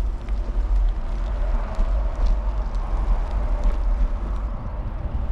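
Wind rumbling on the microphone while riding a bicycle, with tyre and road noise and a few light clicks.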